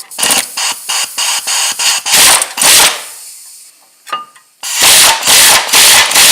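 Pneumatic air tool driven in short trigger bursts, running brake bolts down tight. There are many quick bursts, a pause about three seconds in, then longer, louder runs near the end.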